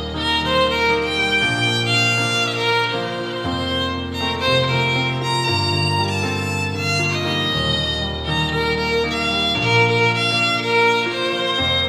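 A violin plays a melody over an accompaniment whose sustained low bass notes change about every two seconds.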